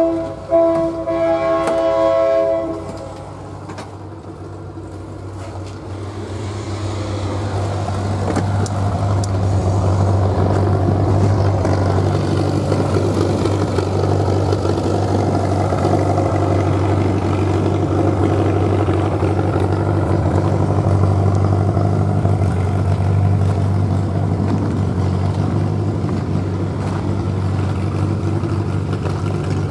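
Locomotive air horn sounding a chord, ending about two and a half seconds in. Then a diesel locomotive's engine swells over several seconds to a loud, steady running rumble.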